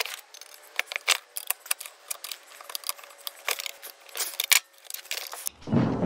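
Light metallic clicks and clinks, irregular and several a second, of tools and small metal parts being handled while the dryer's motor and fan are worked on. About half a second before the end a louder, fuller sound cuts in suddenly.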